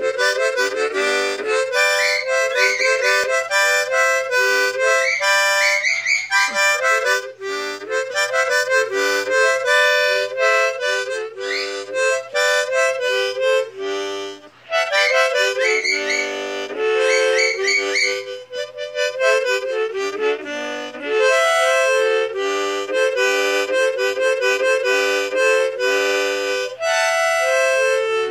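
Harmonica played by mouth: a lively tune of quick, stepping notes, with short pauses about 7, 14 and 20 seconds in.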